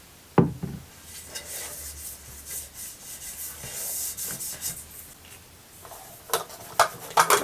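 An oiled hand rubbing vegetable oil over a baking form, a hissy rubbing sound lasting a few seconds. A sharp knock comes about half a second in, and several clicks and knocks come near the end.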